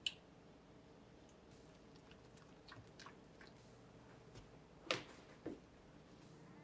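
Quiet kitchen handling sounds: a sharp click at the start, a few light ticks, then two louder knocks about five seconds in.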